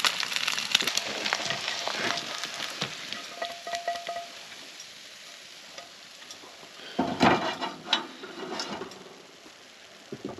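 Eggs and diced potatoes sizzling and crackling in a frying pan on a camp stove, the sizzle dying away over the first few seconds as the pan comes off the heat. Then a few knocks and scrapes of the pan and spatula as the food is slid out onto a plate.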